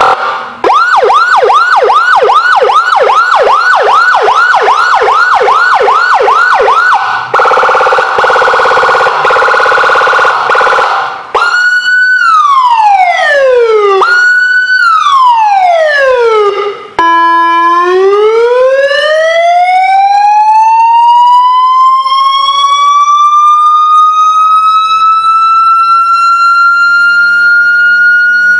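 12-tone electronic siren module switching through its tones: a fast repeating yelp of about three sweeps a second, then a very rapid warble, then two slow falling sweeps, then a long rising wail that climbs and levels off like a mechanical siren winding up. Loud throughout, with a sudden change at each new tone.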